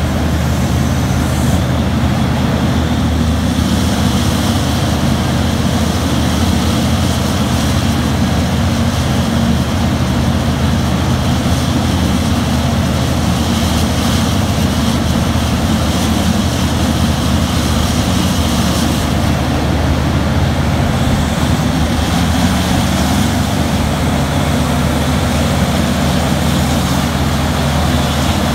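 Terex RH170 front shovel mining excavator's engine running steadily with a loud, even drone while the shovel digs into the face and swings.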